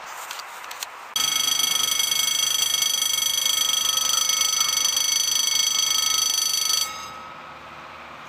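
Railway level-crossing warning bell ringing as a high-pitched, steady electric tone. It starts suddenly about a second in and cuts off after about five and a half seconds, signalling that the crossing is closing for an approaching train.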